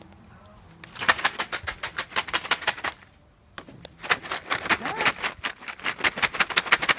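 Cat treats rattled in a container, shaken quickly at about six or seven shakes a second to call a cat. It comes in two runs, with a short break about three seconds in.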